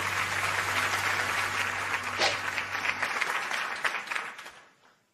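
An audience applauding, a dense patter of clapping that dies away over the last second or so.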